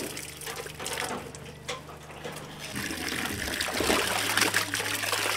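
Water running from a tap, first as a trickle; about three seconds in it turns to louder splashing as hands scrub pieces of tripe in a plastic basin of water under the running tap.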